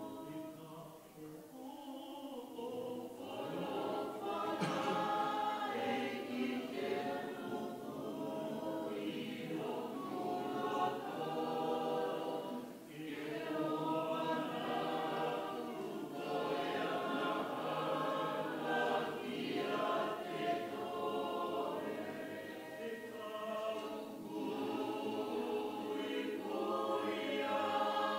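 Church choir singing a hymn, phrase after phrase, with brief dips between phrases about a second in and again about halfway through.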